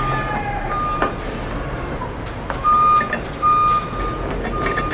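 A high steady electronic beep, one unchanging pitch, sounds about six times at uneven gaps, each lasting about a third to half a second, loudest in the middle. Light metallic clicks of a nut and open-end wrench being handled on a steel bracket come between the beeps.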